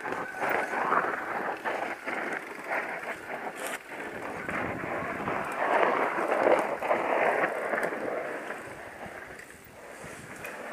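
Downhill mountain bike rolling fast down a dry dirt trail: tyres rushing over loose dirt and leaf litter with scattered clicks and rattles from the bike, and wind on the helmet camera's microphone. The noise is loudest about six seconds in and eases off near the end.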